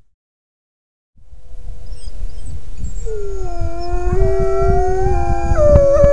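Silence for about a second, then Mexican gray wolves howling in chorus: several long, held howls at different pitches overlap and build up, over a low rumbling noise.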